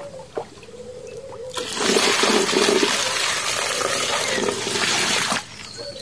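Water poured from above, splashing into the plastic bed of a toy dump truck: a steady rush that starts a little under two seconds in and stops about a second before the end.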